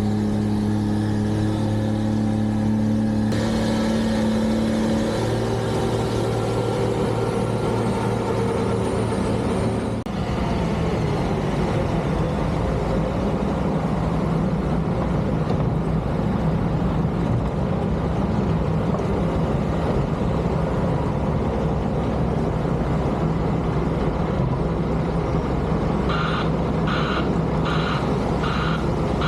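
Heavy snow-removal vehicles' diesel engines running with a steady hum that gives way to a rougher rumble about a third of the way in. Near the end, a reversing alarm beeps about twice a second.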